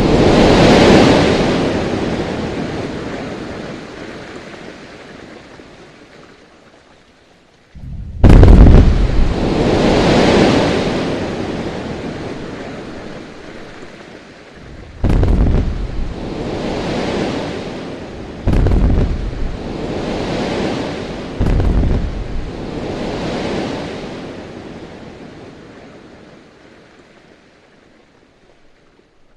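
Quarry blasting explosions: the rumble of one blast dies away at the start, then a deep blast goes off about eight seconds in, followed by three more a few seconds apart. Each one is a sharp crack followed by a long rolling rumble, and the last one fades away slowly near the end.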